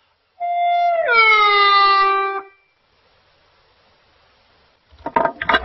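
Hulusi (Chinese gourd cucurbit flute) playing one long demonstration note: a held high sol that glides down, about a second in, to a low la and holds, showing the wide-span sol–la glide (滑音). A few short knocks come near the end.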